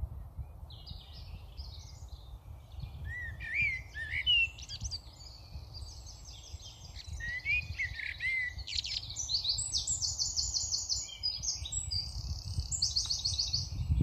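Common starlings calling: whistles sliding up and down, then harsh, buzzy rattling calls that come more and more often toward the end.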